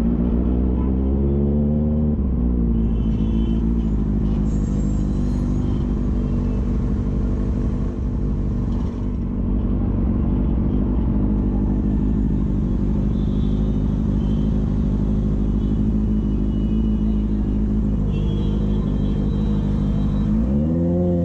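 Motorcycle engine running at low speed in crawling traffic. It is steady most of the time, with a short rev that rises and falls in pitch in the first couple of seconds and again near the end.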